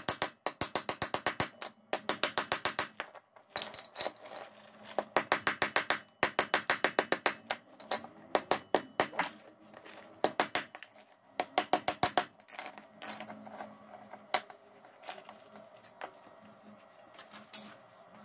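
Chipping hammer striking a stick weld on steel flat bar to knock off the slag: quick runs of sharp metallic taps, about eight a second, broken by short pauses.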